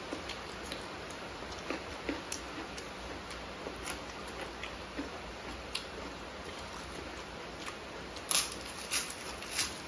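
Eating sounds close to the microphone: scattered soft chewing and mouth clicks over a steady hiss, then several sharp crunches of a crisp fried papad being bitten about eight seconds in, the loudest sounds.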